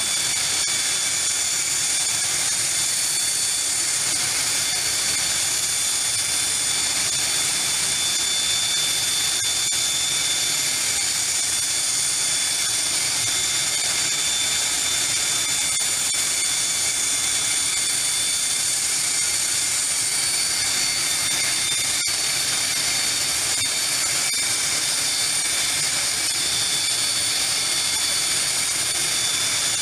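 Jet aircraft's turbine engine running steadily: a constant high whine made of several held tones over a noise haze, with no change in pitch or level.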